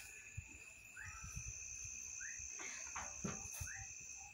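Insects trilling steadily at two high pitches, with a short rising chirp repeating every second or so. A brief spell of rustling and light knocks comes a little after the middle as the plastic pipe is handled.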